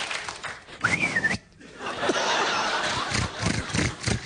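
Studio audience laughing. About a second in comes a short whistle that rises and wavers, a mouth-made vocal sound effect.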